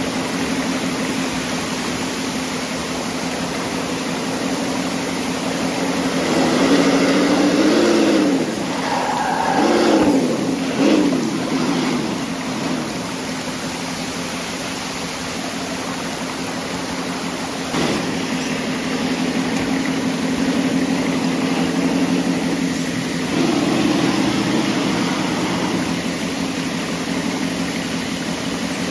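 A steady engine-like hum that revs up and down several times about six to thirteen seconds in and again once more later, over rushing creek water.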